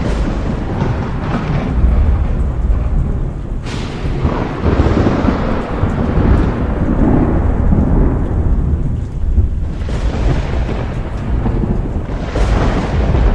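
Thunder rumbling deep and long over steady rain, with a few sudden sharp cracks about 4, 10 and 12 seconds in.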